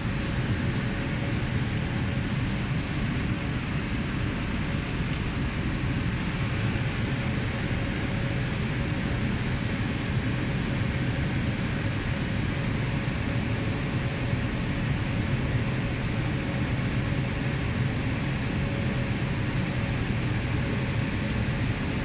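Steady machine-room noise of cooling fans and air conditioning: an even whir with a low hum and a faint steady tone, with a few faint, scattered ticks.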